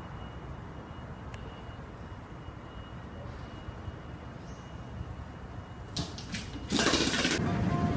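Steady quiet hum and hiss with a faint high whine and a light click about a second in. A few clicks come near the end, then a sudden loud rush of noise cuts in, followed by a few music notes.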